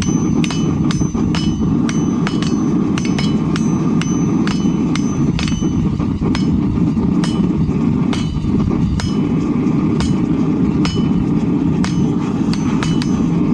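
Hand hammers striking red-hot steel on an anvil, blow after blow at roughly two a second, many blows ringing briefly, over a steady low noise.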